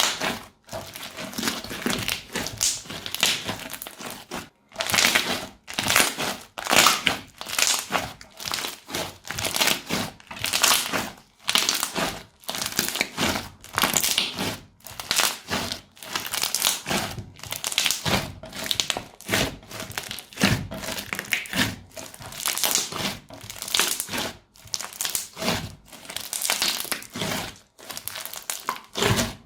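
Crunchy slime being squeezed and pressed, crackling and crunching in repeated bursts about once a second.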